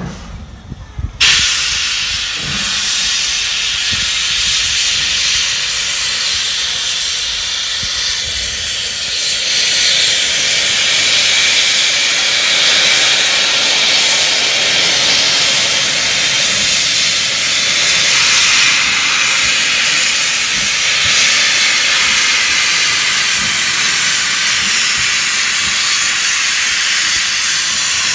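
Steam locomotive 45231, an LMS Stanier Black Five 4-6-0, blowing steam from its open cylinder drain cocks: a loud steady hiss that starts suddenly about a second in and grows louder about ten seconds in.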